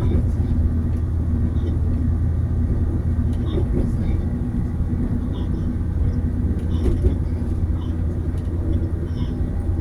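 Passenger train running steadily, heard from on board: a continuous low rumble and hum, with short high squeaks and clicks every second or so.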